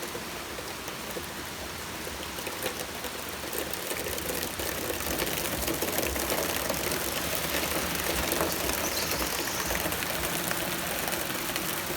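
Steady rain shower falling, a dense even hiss of rain, growing a little louder a few seconds in, with a low rumble beneath it from about four seconds on.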